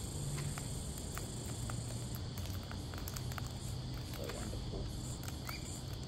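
Sulphur-crested cockatoos feeding from a tray, their beaks and claws making scattered light clicks and taps, over a steady high-pitched insect drone.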